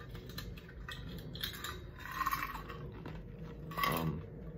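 Ice cubes clattering in a cup tipped up to the mouth, then ice crunched between the teeth in a run of short, irregular crunches. A brief throat sound about four seconds in.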